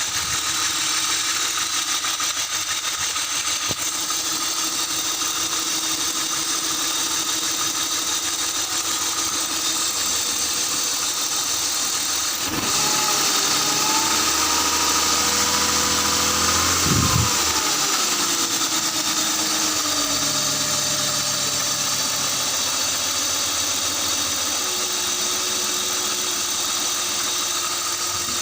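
BMW engine idling with its accessory drive belt off, so only the crankshaft pulley turns and no alternator or other pulleys load it. It runs very smoothly this way, which the mechanic takes to mean the roughness usually comes from the accessories' bearings. About halfway through, the engine speed rises for several seconds and then drops back to idle.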